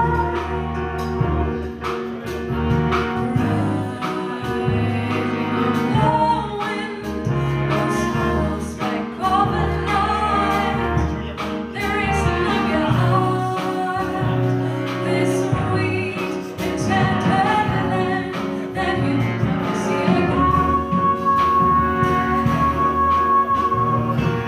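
Live jazz-soul band playing: a woman singing over a horn section of saxophones and trombone, with piano, bass and drums keeping a steady groove.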